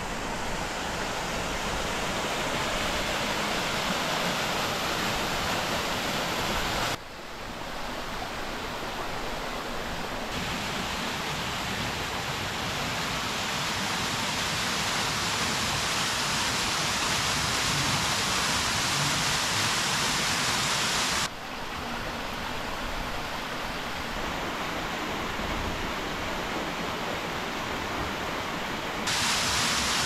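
Steady rushing of a small waterfall, with several sudden jumps in level.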